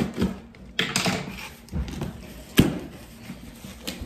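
Cardboard shipping box being opened and handled: rustling and scraping with a few sharp knocks, the loudest about two and a half seconds in.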